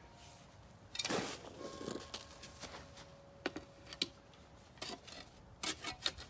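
Garden spade scraping into loose soil and scooping it back into a trench over buried boards, a series of short scrapes and sharp clicks, the loudest scrape about a second in.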